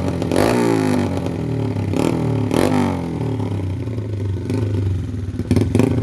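Modified Honda underbone's single-cylinder four-stroke engine (56 bore, stroker crank, grind cam, 32 carb) running through a Noo Lamluka super-open exhaust. It is blipped on the throttle several times, the revs jumping up and then falling back toward idle after each blip.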